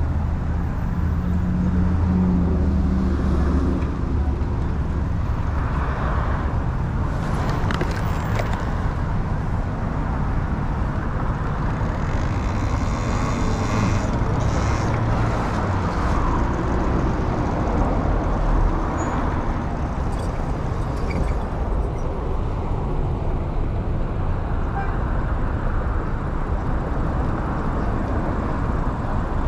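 Road and traffic noise heard from a moving Talaria Sting R MX4 electric dirt bike: a steady, low rushing noise with cars around.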